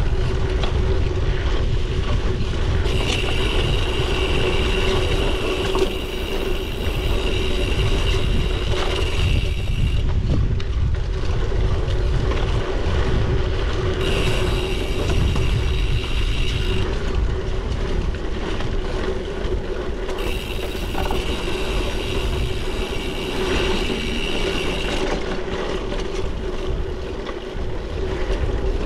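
Bicycle riding over a rough road: a steady low rumble of tyres and wind with a constant hum. Three times, for several seconds each, a high ticking buzz from the rear freewheel comes in while the bike coasts, then stops when pedalling resumes.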